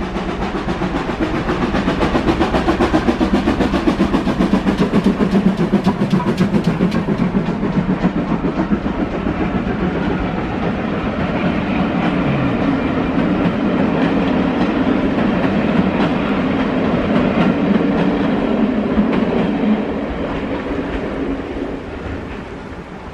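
Steam-hauled passenger train on the West Somerset Railway crossing a stone bridge overhead: a loud rumble and rapid clatter of wheels on the rails, loudest in the first few seconds, then the coaches running past and fading away near the end.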